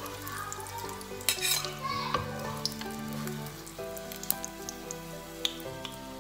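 Egg-battered eggplant slices frying in hot oil, sizzling steadily, with a metal slotted spatula scraping and clinking against the pan as pieces are lifted out, loudest about a second in. Soft background music with sustained notes runs underneath.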